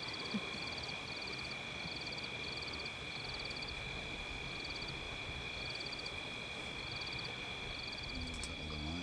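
Night chorus of frogs and insects: two steady high-pitched trills held throughout, with a short rapid trill repeating about once a second. A low voice murmurs briefly near the end.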